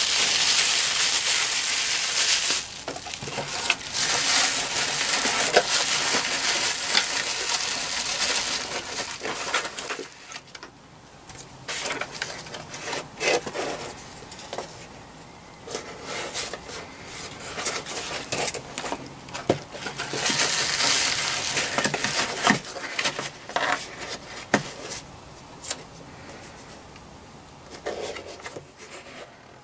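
Aluminium foil crinkling and rustling as a vacuum tube is wrapped in it for storage, in several long spells, with quieter handling taps and knocks in between.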